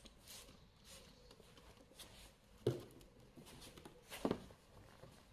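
Quiet room with faint handling sounds: a short hiss from a trigger spray bottle just after the start, then two dull knocks, the loudest sounds, about two and a half and four seconds in.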